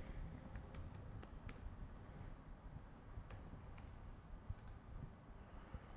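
Faint clicks of a computer keyboard and mouse as text is typed: a quick run of keystrokes at first, then a few scattered clicks with pauses between.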